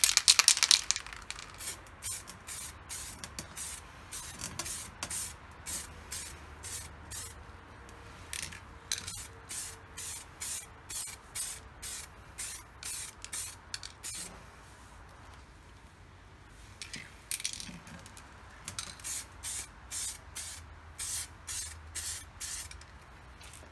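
Aerosol spray paint can hissing out grey paint in many short bursts, about two a second, with a longer, louder burst at the start and a few short pauses, laying a coat into a steel helmet shell.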